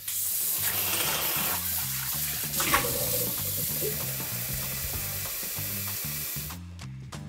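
Tap water running from a kitchen faucet into a stainless steel pan held in the sink: a steady splashing hiss as the pan fills, which cuts off near the end.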